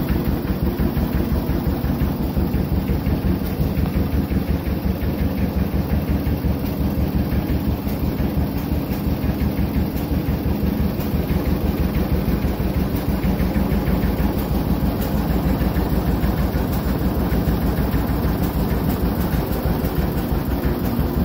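Vintage John Deere two-cylinder tractor engine running steadily with a rapid, even pulsing beat.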